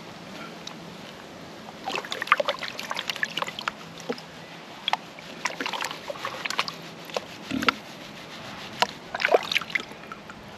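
Water sloshing and splashing in a plastic gold pan as it is swirled and dipped in a tub of muddy water, washing down the gravel concentrate. Irregular splashes and drips come from about two seconds in.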